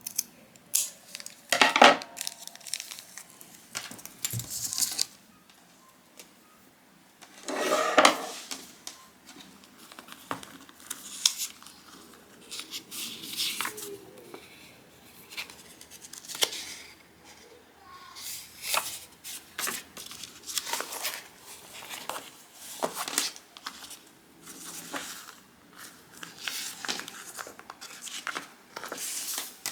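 Paper or plastic packaging being handled: irregular rustling, tearing and crinkling, loudest about two seconds in and again about eight seconds in.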